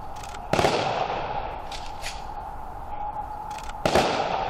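Two rifle volleys from a firing party, about three seconds apart, each a sharp crack with a short echo: the rifle-volley salute of military funeral honors.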